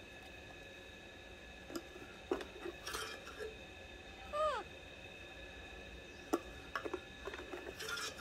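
Baby monkey giving a single short call that falls in pitch, about halfway through, among scattered sharp clicks and short rustles from a plastic baby bottle and formula tin being handled.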